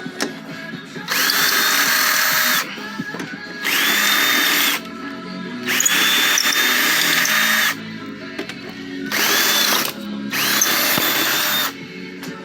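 Power drill run in five short bursts of about a second each. The motor's whine rises quickly as it spins up, holds steady, then stops when the trigger is released.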